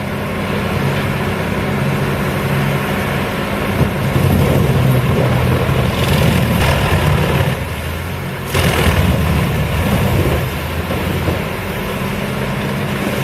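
Engine of a heavy wood-processing machine running steadily, its load rising and easing a few times.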